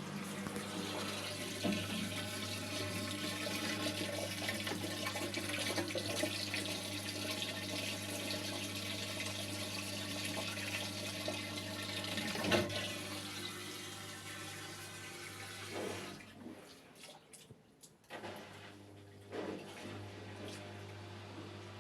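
Front-loading washing machine's drain pump running with a steady hum while water rushes out through it and the drain hose; about three quarters of the way through, the rush of water dies away. This is the drain working again on a machine that had shown the 5E won't-drain error.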